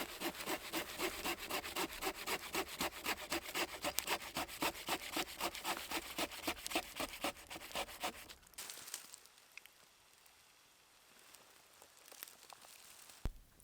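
Rapid, even back-and-forth sawing strokes, about three a second, that stop about eight seconds in; a single sharp click near the end.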